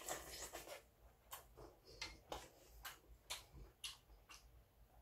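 Faint eating sounds: a slurp from a bowl of soup in the first second, then wet mouth clicks from chewing with the lips smacking, about two a second.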